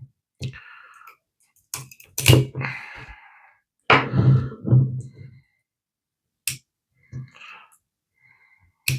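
A person straining to twist open a syrup bottle cap stuck with dried sugar syrup, with short voiced effort sounds and breaths and a few sharp clicks from the cap and bottle.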